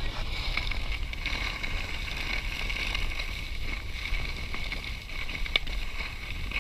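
Skis sliding over packed snow, a steady hiss, with wind buffeting the microphone as a low rumble; a light click near the end.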